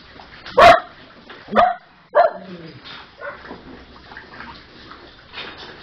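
Small dogs barking: three sharp, loud barks in the first couple of seconds, then quieter, scattered noises.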